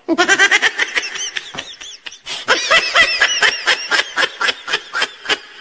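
A person laughing hard in rapid high-pitched bursts, several a second, in two long runs with a short break about two seconds in.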